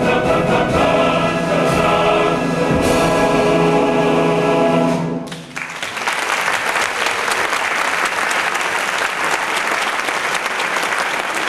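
Men's opera chorus and orchestra holding a loud final chord, which cuts off about five seconds in. Audience applause follows right away and goes on steadily.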